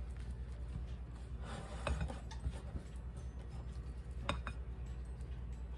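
A utensil stirring thick icing in a mixing bowl, with a few sharp clinks against the bowl, two close together about four seconds in, over a low steady hum.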